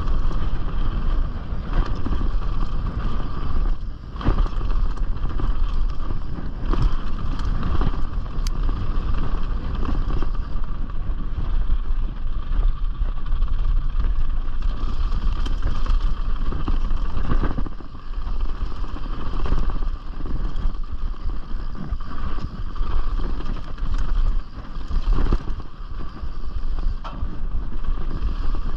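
Canyon Strive enduro mountain bike riding downhill on a bike-park trail: steady wind on the microphone over tyre rumble and the rattle of the bike on rough ground, with occasional sharp knocks from hits on the trail.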